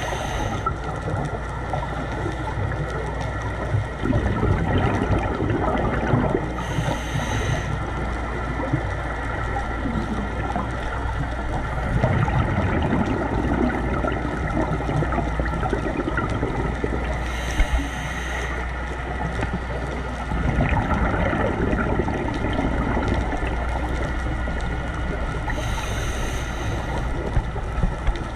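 Scuba diver breathing through a regulator underwater: a brief hiss at each inhalation, four times, roughly every nine seconds, and gurgling exhaled bubbles between, over a steady low drone.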